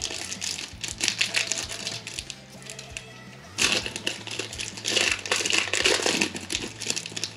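Foil trading-card pack being torn open and its wrapper crinkled, with a loud stretch of tearing and crinkling in the second half, over steady background music.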